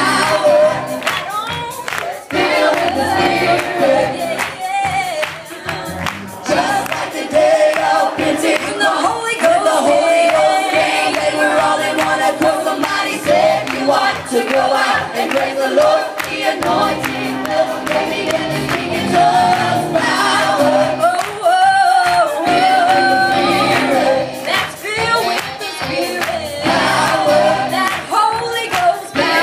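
Gospel choir singing a praise song, led by a male singer on a microphone, with keyboard accompaniment.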